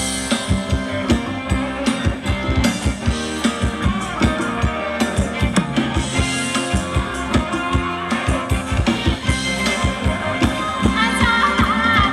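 Thai ramwong dance music from a live band: a drum kit keeps a quick, steady beat under pitched instruments.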